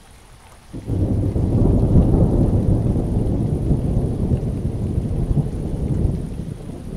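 Rain falling steadily. About a second in, a long, deep rolling rumble of thunder comes in suddenly over the rain and carries on, easing a little near the end.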